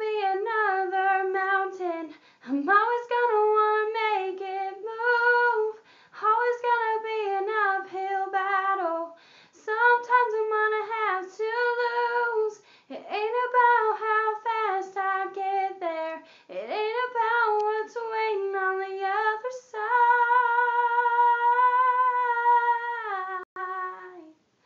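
A teenage girl singing solo a cappella, in short phrases with brief breaks between them. Near the end she holds one long steady note, which slides down and fades away.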